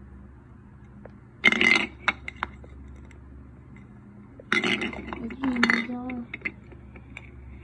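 Hard plastic Minion figurines in orange ring bases being handled, knocked together and set down on a wooden floor: two loud clattering bursts with a few lighter clicks. Near the end comes a brief low voice-like sound.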